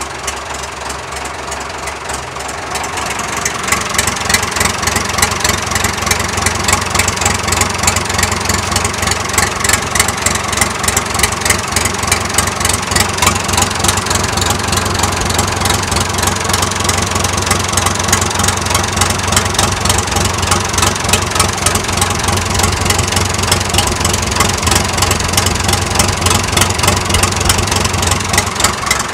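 David Brown 990 tractor's four-cylinder diesel engine running steadily after a cylinder head and valve seat rebuild, with its rocker cover off and the valve gear exposed. It gets louder about three seconds in, then holds a steady, even clatter.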